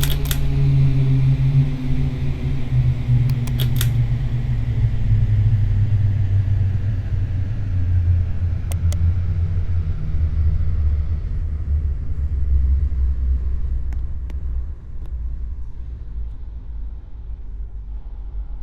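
Ceiling fans humming with a low rumble whose pitch slowly sinks while the higher whir fades away, as if the fans are slowing down. Sharp clicks come right at the start, at about four seconds and at about nine seconds.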